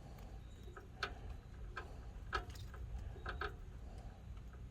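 Light, irregular clicks and taps of small metal parts being handled while a snowblower's auger control cable and its threaded fitting are worked into place.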